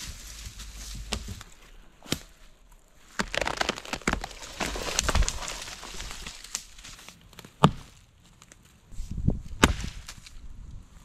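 Footsteps crunching through dry fallen leaves, with a heavy branch dragging and rustling through them. Later come a couple of sharp knocks of an axe striking wood.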